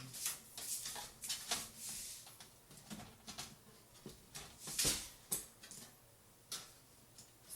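Irregular light clicks, taps and rustling from hands working on PC parts during a case swap. Busiest in the first couple of seconds, with a louder rustle about five seconds in, then sparser.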